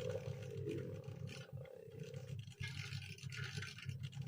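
Prusa 3D printer's stepper motors humming as the print head lays down a first-layer calibration line while the nozzle height is lowered with Live Z. A higher whine sits over the low hum and fades out about halfway through.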